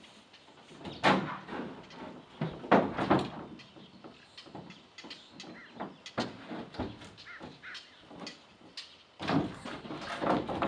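Truck sideboards being lifted and set into place, with scraping and a series of knocks. The loudest knocks come about a second in, around three seconds and near the end.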